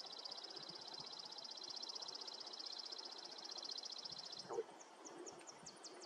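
A faint, high, very fast buzzing trill, most likely an insect, running steadily and breaking off about four and a half seconds in at a soft thump. It then resumes as a slower series of separate high ticks.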